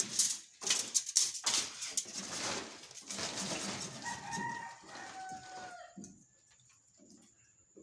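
Rooster crowing, a falling call about four to six seconds in, preceded by a few seconds of loud clattering and knocking.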